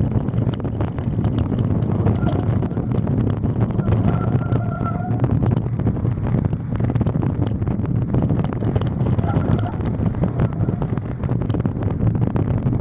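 Wind buffeting the microphone of a camera on a mountain bike ridden along a muddy forest trail, with frequent small knocks and rattles as the bike jolts over the ground.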